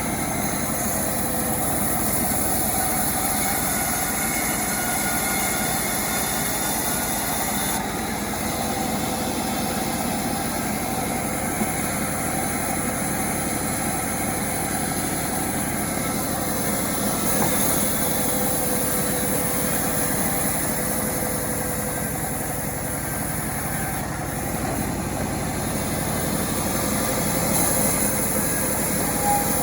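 Small engine of a homemade chainsaw running steadily at an even speed, with no clear revving or bogging under load.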